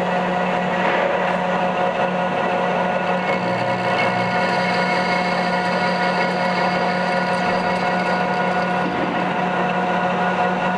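Metal lathe running at 605 rpm, its headstock giving a steady low hum and a layered whine, while a turning tool cuts down the outside diameter of a 27 mm hexagon bar.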